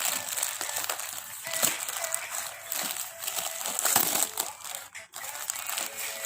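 Packaging being handled and unwrapped: crinkling and rustling with many short crackles, briefly stopping about five seconds in.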